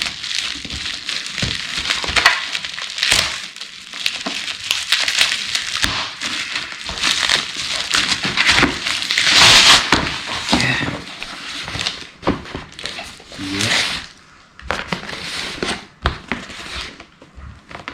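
Laptop box and its packaging being handled and opened: irregular crinkling and rustling with a few sharp clicks.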